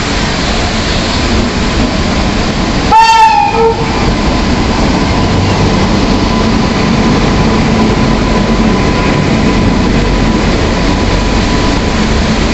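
Indian Railways passenger train pulling in alongside the platform, its coaches rumbling past close by. A short locomotive horn blast sounds about three seconds in.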